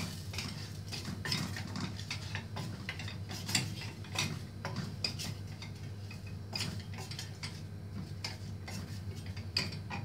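Wooden spoon stirring spices in a small stainless-steel saucepan, knocking and scraping against the pot at irregular intervals, about one or two knocks a second, over a steady low hum.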